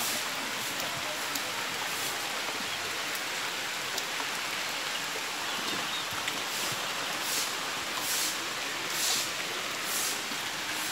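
Steady rain falling, an even hiss. Several short, high swishes sit on top of it in the second half.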